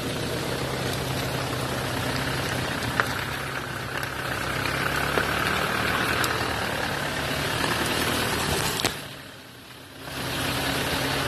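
Isuzu Trooper 4x4's engine idling with a steady hum. A sharp click comes about nine seconds in, then the sound drops away for about a second and comes back at the same level.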